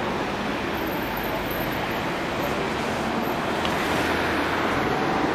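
Steady rushing noise of heavy Atlantic surf breaking along the shore, even throughout and a little louder near the end.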